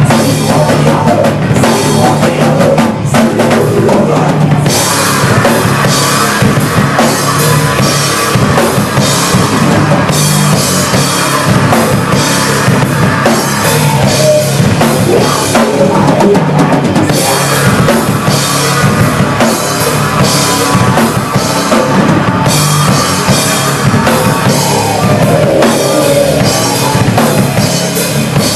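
Live rock band playing loud: electric guitars over a drum kit with a driving bass drum and frequent cymbal hits.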